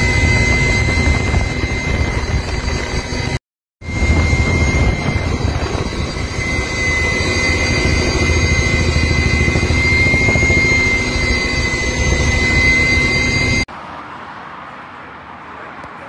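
Helicopter in flight heard from inside the cabin: the turbine's steady high whine over the deep beat of the rotor, with a brief break about three and a half seconds in. Near the end it cuts to a much quieter steady outdoor noise.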